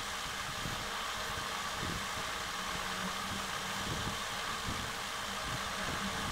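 Steady whirring hiss of a small fan running, with a faint low hum and a few light handling bumps.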